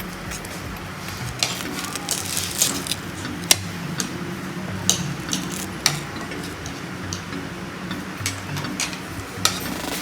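Cutlery clinking and tapping against plates of served food in about ten irregular, sharp clicks.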